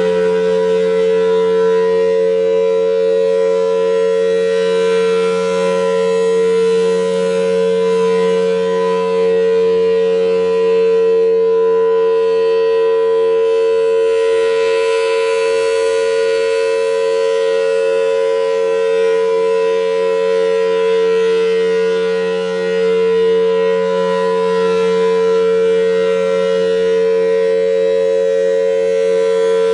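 Federal Signal Thunderbolt 1000T outdoor warning siren sounding a loud steady tone during a test. Its pitch finishes winding up in the first second, then holds as a steady chord over a lower hum.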